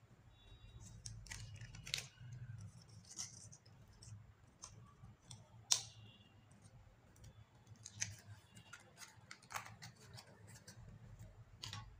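Faint sticky clicks and pops of clear slime being scraped out of a small plastic tub by hand, with one sharper click just before halfway, over a low steady hum.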